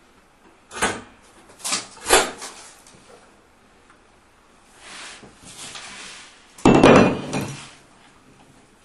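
A door's letterbox flap clacks three times as a letter comes through. Paper then rustles, and near the end a loud crackle comes as the letter is unfolded.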